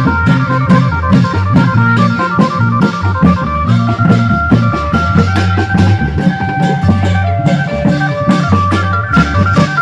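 Isan klong yao long-drum band playing: the drums keep a quick, steady beat, about four strokes a second, under a sustained electronic organ melody.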